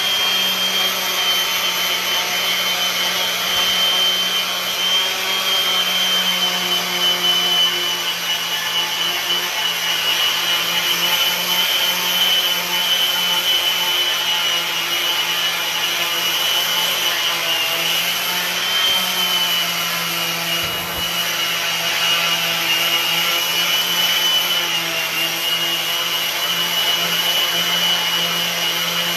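Electric power sander running steadily on the wooden neck of a neck-through bass, shaping its profile. A high motor whine wavers slightly in pitch over a low hum and the hiss of abrasive on wood.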